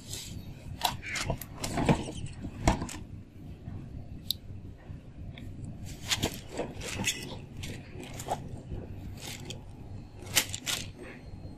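Irregular light clicks, taps and scrapes of kittens playing with cat toys on a concrete floor.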